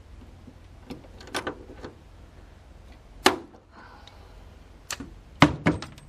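Aluminum angle being riveted with a hand rivet tool: a string of sharp metallic clicks and snaps, one loud snap about three seconds in and a quick cluster near the end.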